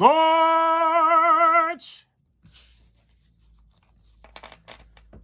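A man's voice drawn out into a long, sung "Scorch!" for nearly two seconds, rising in pitch at the start and wavering near the end. After a pause, faint rustling and light taps of trading cards being handled, about four seconds in.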